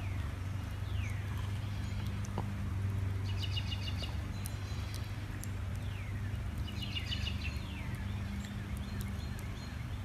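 Outdoor birds calling: short downward-sliding calls and two bursts of rapid, chattering high notes about three and seven seconds in. Underneath are a steady low hum and occasional sharp crackles from a burning wood fire.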